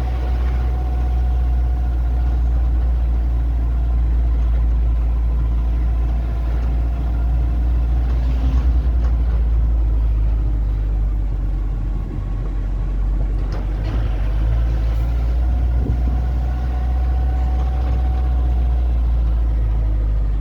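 A steady, loud low rumble of a running engine or motor, with a faint steady tone above it.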